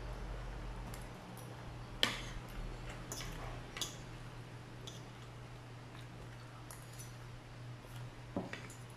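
Metal spoon and fork clinking and scraping against a ceramic plate while scooping rice, a scattering of sharp clinks with the loudest about two seconds in. A low steady hum runs underneath.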